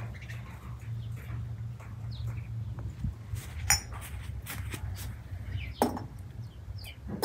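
Three sharp clinks of tea things being handled at a samovar, the first ringing briefly, over a steady low hum.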